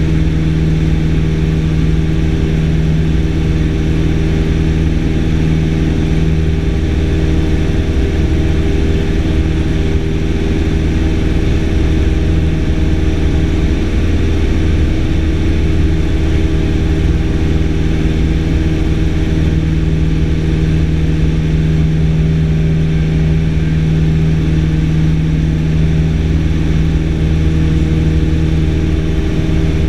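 Single-engine light aircraft's engine and propeller running steadily at cruise, a constant drone heard from inside the cockpit.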